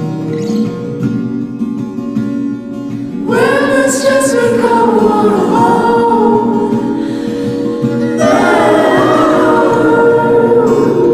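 A song playing: instrumental accompaniment, then singing entering about three seconds in, with a new sung phrase a few seconds later.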